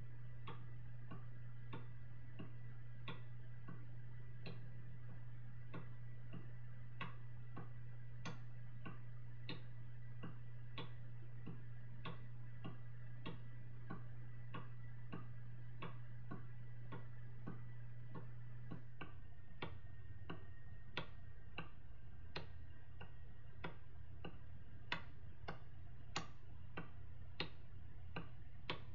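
Paper pendulum clock ticking steadily, its escapement giving an even run of light clicks, over a steady low hum.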